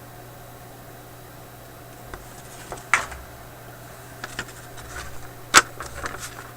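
A few scattered light clicks and taps, like small objects being handled, with a sharper click about three seconds in and the loudest about five and a half seconds in, over a steady low hum.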